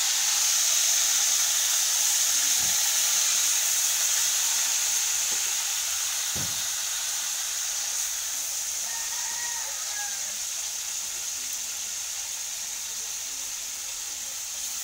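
Pork pieces sizzling as they fry in a wok, a steady hiss that grows somewhat quieter over the second half. A couple of soft knocks as the meat is turned with tongs.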